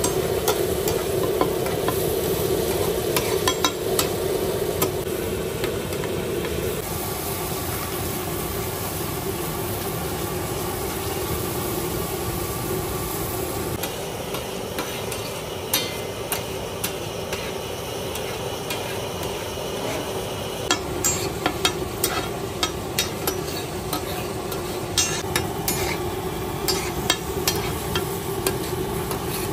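Mutton liver and tomato masala sizzling on a large flat metal tawa, with a metal spatula scraping and clicking against the griddle. The spatula strikes come in quick clusters, most of them in the second half.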